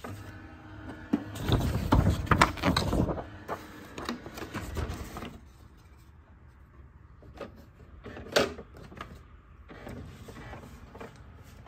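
HP Smart Tank 515 inkjet printer's internal motors whirring and clicking as it initializes after its first power-on. Loudest over the first three seconds, then quieter, with a sharp click about eight seconds in.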